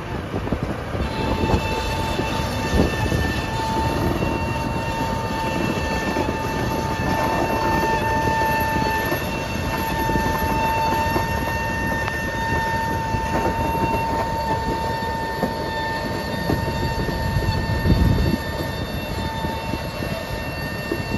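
Tully Mill diesel cane locomotive Tully-3 hauling a rake of loaded sugarcane bins past at low speed: engine running with rumbling and knocking from the wheels and bins on the track, over a steady high whine. A louder thump near the end.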